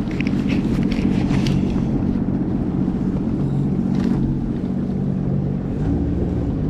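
Sea-Doo GTX 170 personal watercraft's three-cylinder Rotax engine running steadily at low speed, with a few light clicks in the first second and a half and once more about four seconds in.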